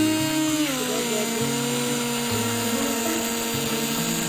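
Electric hand blender whipping coffee, sugar and water into a thick foam in a small cup: a steady motor whine whose pitch drops slightly about half a second in, then holds.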